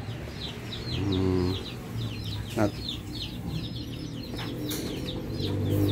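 Young chicks peeping in a brooder: a steady run of short, high, falling peeps, about three or four a second. A brief lower-pitched call sounds about a second in.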